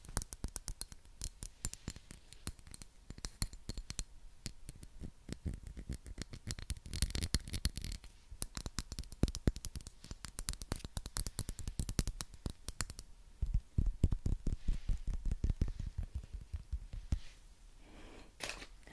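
Fingernails tapping and scratching rapidly on a glass perfume bottle with a gold sleeve, a dense stream of quick clicks that stops a little before the end.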